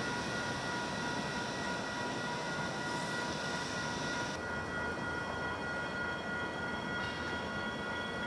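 Adelaide Metro 4000-class electric multiple unit pulling slowly into the station: a steady rumble of wheels on rail under a whine of several steady tones from its traction equipment. About four seconds in, the higher hiss drops away abruptly while the tones carry on.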